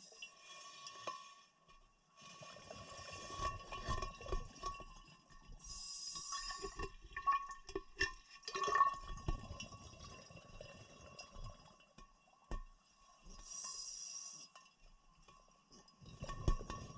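Scuba breathing heard underwater: hissing regulator breaths every few seconds with bubbly exhalations between them. A run of sharp clicks and knocks comes in the middle, over a faint steady tone.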